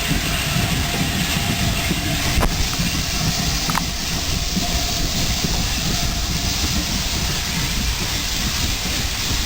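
A train running on the line: a steady low rumble of wheels on track with hiss over it. A single sharp click comes about two and a half seconds in.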